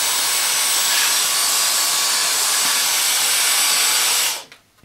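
Dyson DC35 Digital Slim cordless stick vacuum running in regular mode with the crevice tool fitted: a steady, loud rushing hiss of suction with a faint high whine. It cuts off a little over four seconds in as the motor is switched off.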